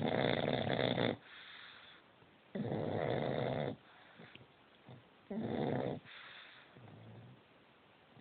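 A pug snoring loudly: three snores, each about a second long, come roughly two and a half seconds apart, with much quieter breaths between them.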